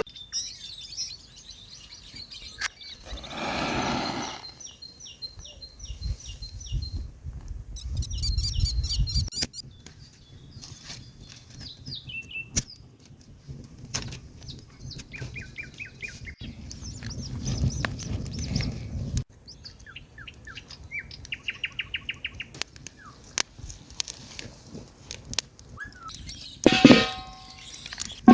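Birds chirping and singing, with repeated short high notes and trills, among scattered clicks and knocks. A louder noisy burst comes near the end.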